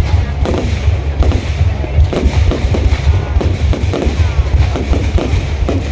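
A fireworks display going off: a dense, continuous barrage of booms and cracking bangs, several every second, over a steady low rumble.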